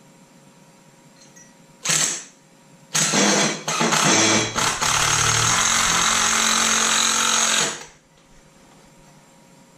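Handheld power drill working aluminium square tube in trigger bursts. There is a brief pull about two seconds in, then a stop-start run from about three seconds that settles into a steady run of about three seconds and cuts off near the end.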